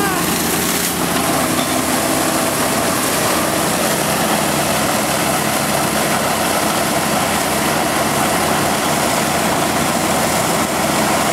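High-pressure water jet from a hose blasting mud off a Cat D9 bulldozer's steel tracks: a steady, unbroken spray hiss and splatter, with an engine running steadily underneath.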